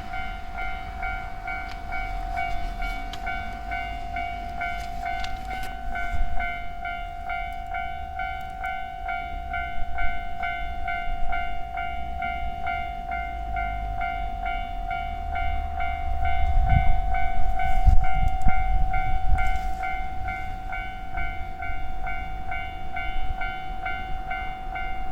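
Level-crossing warning bell ringing the whole time in a fast, repeating electronic ding, while a train rumbles over the crossing. The train is loudest about two-thirds of the way through.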